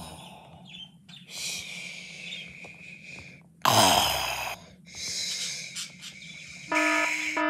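A person making exaggerated snoring sounds: a long wheezy in-breath, a loud out-breath about four seconds in, then another wheezy in-breath. Near the end a repeating beeping tone starts.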